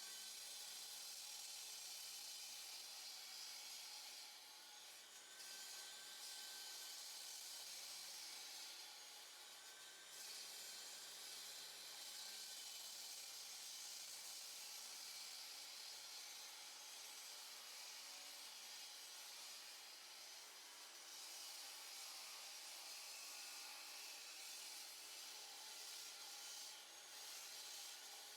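Power saw cutting through a concrete slab, heard faintly as a steady high grinding hiss that eases briefly three times.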